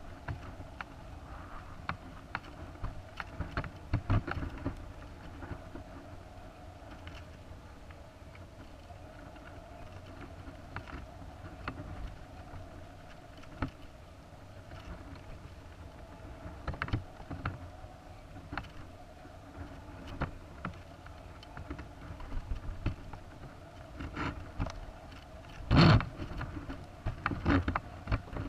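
Muffled clicking and knocking of a high-altitude balloon's onboard camera payload, over a steady low hum, with one louder thump near the end.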